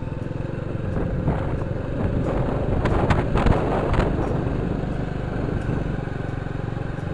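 Small motorcycle engine running steadily on the move, with a couple of rushing surges about three to four seconds in.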